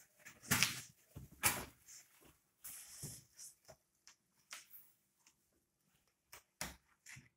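Large cardboard box being opened by hand: flaps bent back and pressed flat, with irregular scraping, rustling and dull knocks, loudest in the first two seconds.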